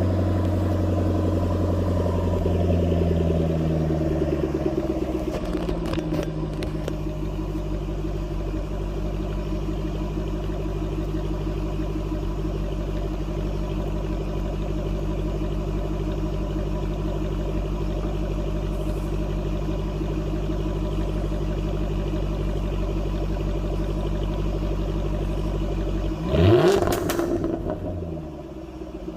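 Jaguar F-Type R's supercharged 5.0 V8 on its stock exhaust idling after a cold start. The raised cold idle settles lower over the first few seconds, then holds steady. Near the end there is one quick rev that rises and falls.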